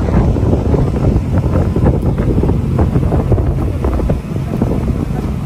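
Wind buffeting the microphone on a moving sightseeing boat, over the low, steady running of the boat's engine.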